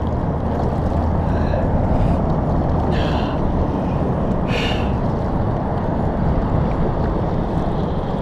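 Kayak paddle strokes splashing in river water, with brief splashes about three and four and a half seconds in, over a steady low rushing noise.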